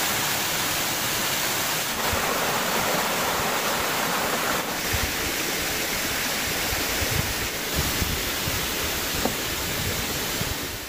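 Waterfall cascading down stepped rock ledges: a steady, loud rush of falling water.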